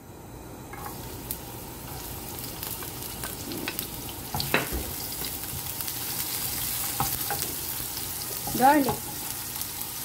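Chopped garlic sizzling in hot oil in a nonstick frying pan, the sizzle setting in about a second in as the garlic is tipped in. A wooden spatula stirs it, with a few taps against the pan.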